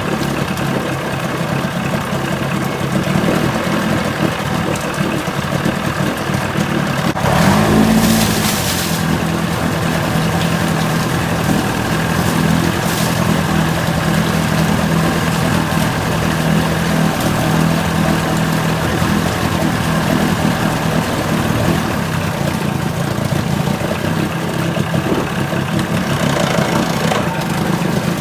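1980 Chrysler 45 hp two-stroke outboard running steadily at idle, briefly revved up and back down about eight seconds in. It is running after a flooded no-start, and the mechanic can find nothing wrong with it.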